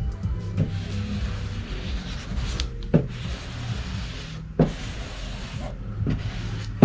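Paper backing being peeled away from a vinyl hood stripe under transfer tape, with crinkling and rustling and three sharp taps.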